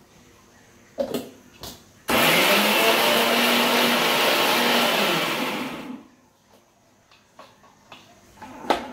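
Steele mixer grinder with a small stainless steel jar grinding chutney ingredients in one run of about four seconds. The motor winds up quickly, runs steadily, then spins down after it is switched off. Knocks and clacks of the jar on the base come before and after, the sharpest near the end.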